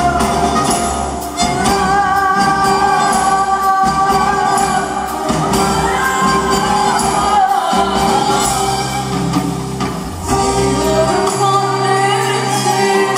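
A live band playing a Turkish pop song with a voice singing over it, heard from the audience stands of an open-air concert.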